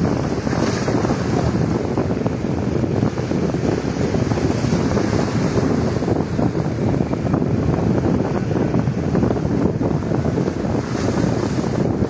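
Strong wind buffeting the microphone over sea waves washing and splashing against concrete breakwater blocks: a dense, steady rush of noise.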